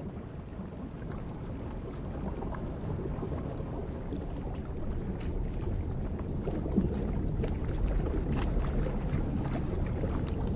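Underwater ambience beneath river ice: a low, murky water rumble that slowly grows louder, with faint scattered clicks in its second half.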